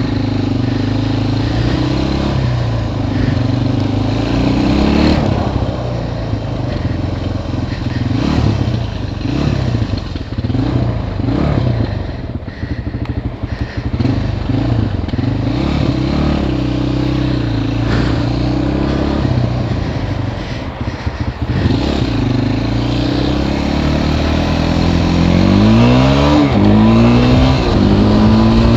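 Suzuki ATV's engine running under the rider, revving up and dropping back again and again as it pulls away and slows in traffic. Near the end it climbs in pitch in several quick rising sweeps as it accelerates through the gears.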